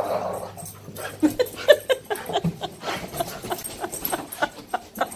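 Two dogs playing over a toy: a quick, irregular run of short dog sounds and clicks, several a second, easing off near the end.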